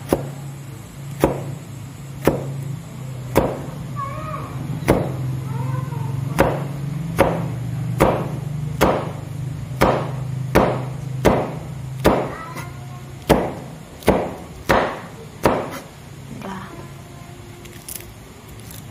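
Kitchen knife slicing large red chillies and then lemongrass, its blade knocking on a plastic cutting board in a steady run of chops, a little over one a second, that stops about three-quarters of the way in after one last chop.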